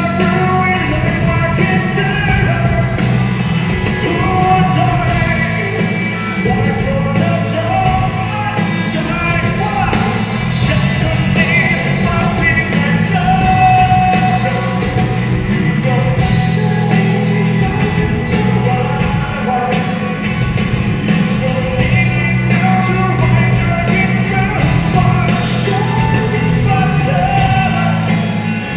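Live rock band playing a Thai-language song: a male singer over electric guitar, bass guitar, drums and keyboard, heard through the stage PA.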